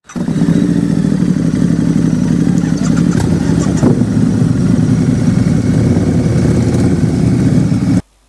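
An engine running steadily at a constant speed. It cuts in suddenly and stops abruptly near the end.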